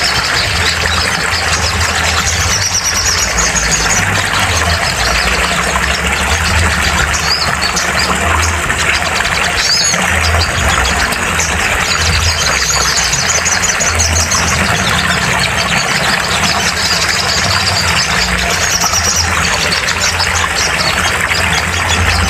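Sunbird (sogon), likely a crimson sunbird, giving high, thin chirping trills in short bursts every few seconds. Underneath runs a loud, steady noisy drone with a low hum.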